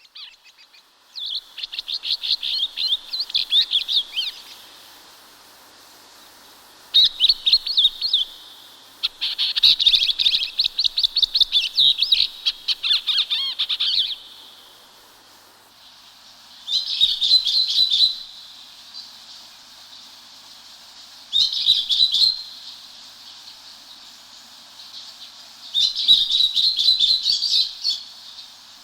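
Songbird singing: six phrases of rapid, high-pitched chirping notes, each lasting one to five seconds, with pauses between them and a faint steady hiss underneath.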